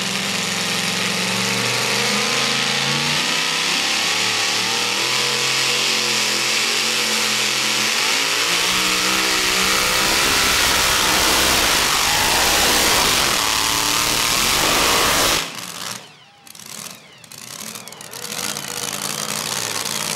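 Supercharged engine of a modified two-wheel-drive pulling truck running at full throttle under load as it drags the sled, its pitch climbing toward the end of the run. The sound stops abruptly about fifteen seconds in, leaving only faint engine sound.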